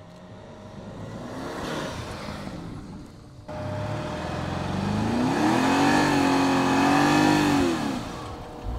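Vehicle engine revving hard under load in soft sand: a sudden step up in level about three and a half seconds in, then the revs climb, hold high for a couple of seconds and fall away near the end.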